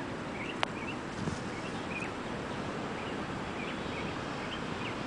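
Steady outdoor background noise with faint, scattered bird chirps and a single small click about half a second in.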